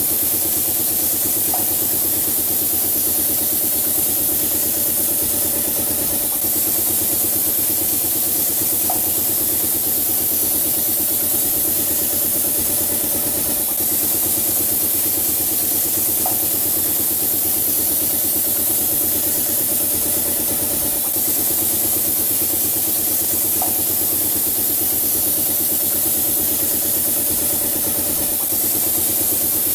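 Small electric motors of a wall-painting machine running steadily, with a constant whine over hiss. A brief chirp repeats about every seven seconds.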